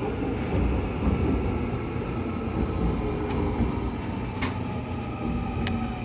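Seoul Subway Line 2 4th-batch electric train running, heard from inside the car: a steady low rumble of wheels on track, with traction motor whine that slowly falls in pitch over the second half as the train slows. A few sharp clicks sound partway through.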